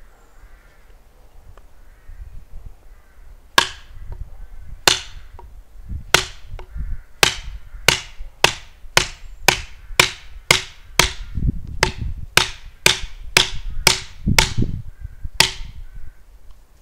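Wooden mallet striking a chisel set into a wooden pole: a series of sharp knocks, a few seconds apart at first, then about two a second, stopping shortly before the end.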